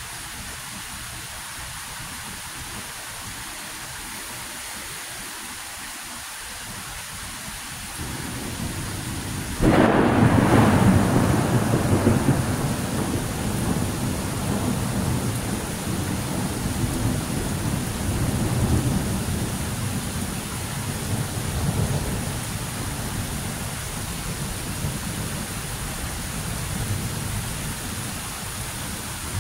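Thunderstorm: steady rain, then thunder. A low rumble begins about a quarter of the way in, a sudden loud crack follows a couple of seconds later, and the thunder rolls on as a low rumble that swells and fades over the rain for the rest of the time.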